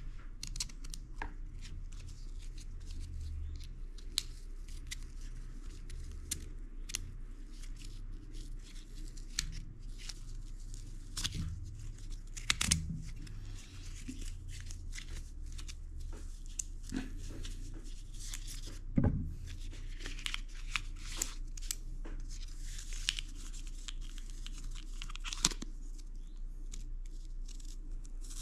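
Hands handling a watch and its green fabric band as the band is fitted and the watch strapped onto a wrist: scattered small clicks and soft rustling of fabric, with a couple of sharper knocks midway, over a faint steady hum.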